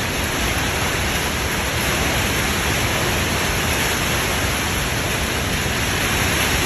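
Very strong storm wind, with winds of about 97 mph, making a loud, steady rushing noise mixed with rain. The wind rumbles on the microphone.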